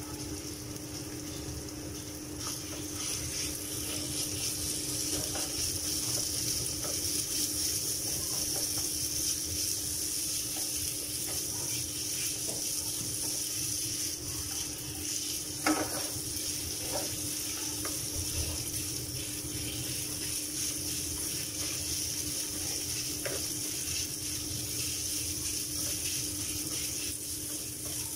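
Minced pork sizzling as it is stir-fried with shallots and garlic in a non-stick frying pan, a wooden spatula scraping and knocking against the pan, with one sharper knock about 16 seconds in. A steady hum runs underneath.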